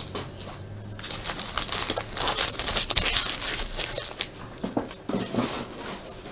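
A trading-card pack wrapper crinkling and rustling in the hands, in a run of short, irregular crackles.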